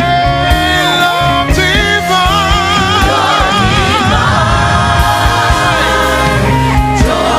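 Gospel worship music: sustained sung notes with vibrato over a band with bass and drums.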